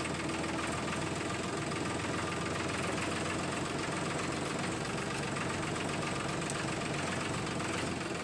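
Steady engine-running sound for a toy tractor, an even idling-like diesel rumble that holds at one level with no revving.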